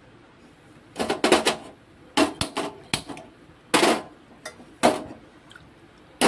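Sharp clicks and clatters of a cooking pot being handled as a herbal kadha is put on to boil. A quick cluster comes about a second in, then single clicks roughly half a second to a second apart.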